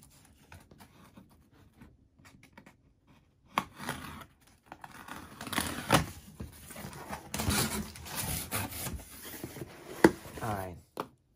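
Cardboard shipping box being opened: faint scratching as the tape is slit for the first few seconds, then the cardboard flaps pulled back and crumpled kraft packing paper rustling and crinkling, with a sharp knock near the end.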